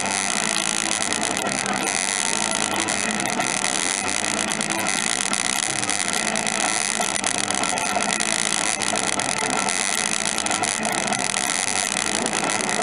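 Steady din of amusement arcade machines: a dense wash of noise with several overlapping electronic tones and no single event standing out.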